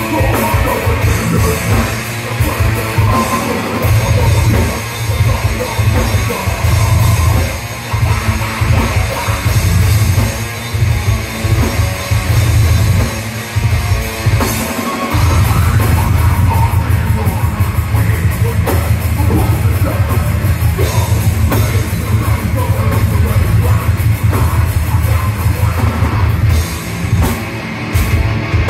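Live heavy metal band playing loud: electric guitar, bass and drum kit together, with a short break about halfway through before the full band comes back in.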